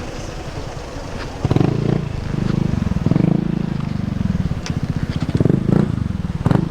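A small engine running close by, coming in loudly about a second and a half in with a rough, pulsing note, with a couple of sharp clicks near the end.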